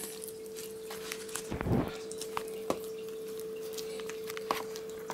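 A spoon stirring thick cream and beetroot purée in a plastic bowl: scattered soft clicks and taps of the spoon against the bowl, with a low thump about a second and a half in.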